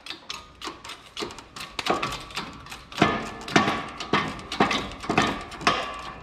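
Hand-pumped hydraulic bottle-jack shop press being worked in quick strokes, its handle and pump clicking and clanking about three times a second as it presses a bearing into a conveyor roller. The clanks grow louder from about three seconds in.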